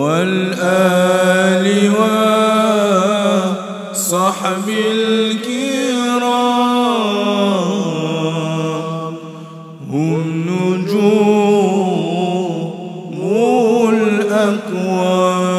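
Islamic devotional chant (nazam) sung in Arabic in long, drawn-out melismatic phrases. A brief break for breath comes just before the tenth second, and then a second phrase begins.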